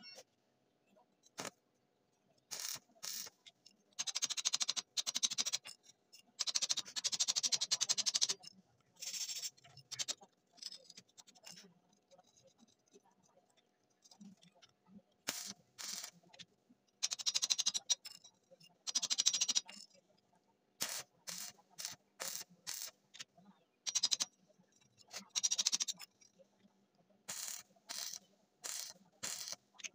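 Electric arc welding on steel rod, crackling and hissing in many short bursts of a fraction of a second to about two seconds, with quiet gaps as each arc is struck and broken.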